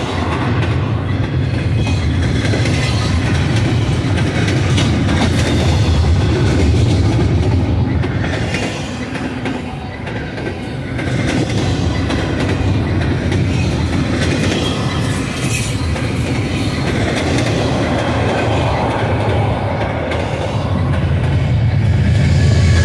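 Double-stack intermodal container train's well cars rolling past at close range: a steady low rumble with occasional clacks of wheels over the rail. It dips in loudness about ten seconds in and grows louder near the end.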